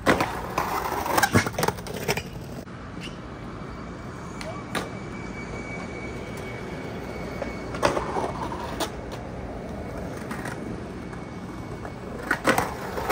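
Skateboard wheels rolling on concrete, with clacks and short scrapes of boards hitting and boardsliding along a concrete slappy curb. This comes in three bursts: near the start, about eight seconds in, and near the end.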